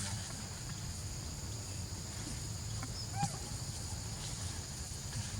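Steady high-pitched insect buzzing over a low rumble, with one short chirping call about three seconds in.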